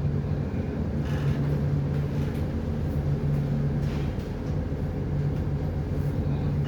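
Steady low drone of a vessel's diesel engine running at constant speed.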